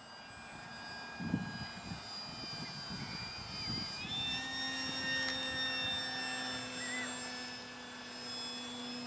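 Electric brushless motor and propeller of a Durafly Tundra RC bush plane in flight, a steady whine of several tones. About four seconds in, the pitch steps up slightly and a lower tone comes in.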